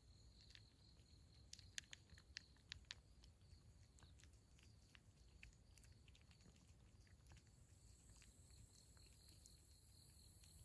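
A cat crunching dry kibble: faint, sharp little crunches, a quick run of them about two seconds in, then sparser. Under them, a steady pulsing insect chirp.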